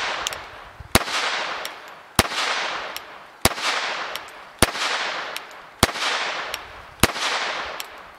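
Beretta 950 BS Minx M4 pocket pistol in .22 Short firing six single shots, about one every 1.2 seconds, each with a trailing echo.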